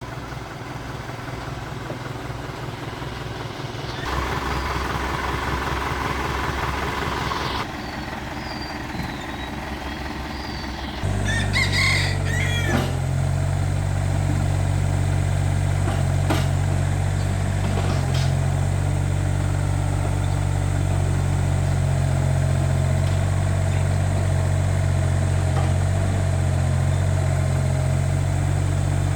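Mini excavator's diesel engine running steadily, jumping to a louder, heavier run about eleven seconds in.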